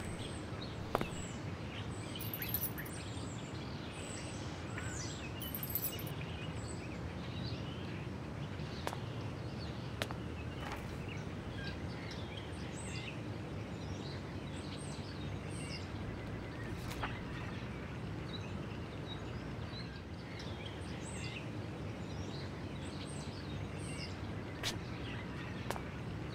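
Outdoor ambience of small birds chirping and twittering over a steady low hum of city traffic, with a few faint clicks.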